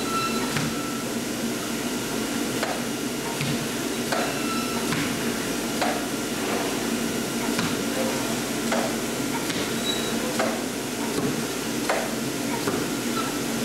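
Automatic flatbed fabric cutting machine at work: a steady blower hum under irregular clicks and knocks about once a second as the cutting head moves and cuts, with brief short whines from its drive.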